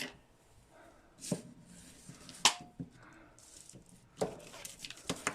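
Handling noise from a plastic action figure and tools on a work surface: a handful of sharp clicks and knocks, roughly a second apart.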